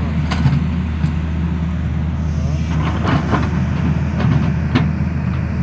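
Tata Hitachi crawler excavator's diesel engine running steadily under load while it digs, with several sharp knocks of bucket and rock, a cluster of them about three seconds in.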